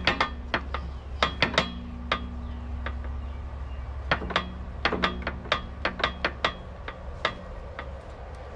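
A steel hammer is striking an excavator bucket pin to drive it through the bucket and linkage bosses, where a shim washer is being fitted. It makes a string of sharp metallic strikes in quick bursts, each ringing briefly, with a short pause about three seconds in. The strikes stop about a second before the end.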